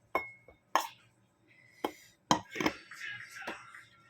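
Cutlery clinking against a plate while eating: several sharp, separate clinks, one of them ringing briefly.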